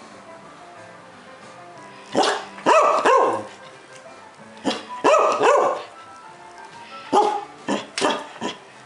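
Dog barking, about ten barks in groups of one to three with pauses between.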